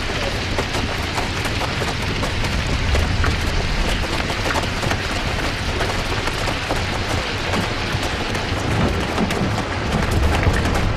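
Dust and small rubble from the blast falling continuously, a dense hail of small ticks over a steady low rumble.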